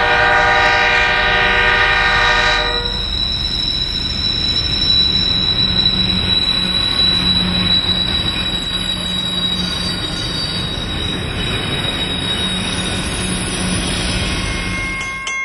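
A Nathan five-chime K horn (model K-5UL-AU-LS, Australian low-tone version) on a diesel locomotive sounding a steady chord that cuts off about two and a half seconds in. Then the diesel locomotives and their container wagons pass close by: engine rumble with a low drone, wheel and rail noise, and a thin high steady tone.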